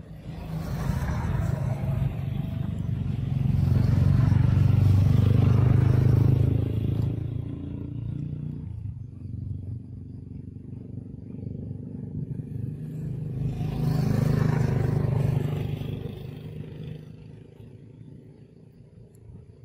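Two motor vehicles passing on the road one after the other, their engine and tyre noise swelling and fading away: the first is loudest about five seconds in, the second about two-thirds of the way through.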